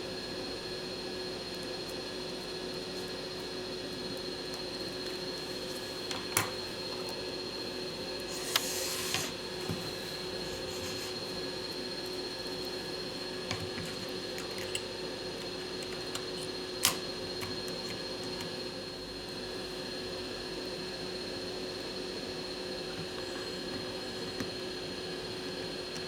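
Steady mechanical hum with a constant low tone and a faint high whine, like a small fan or motor running. A few sharp clicks and a brief hiss break in, about 6, 8.5 and 17 seconds in.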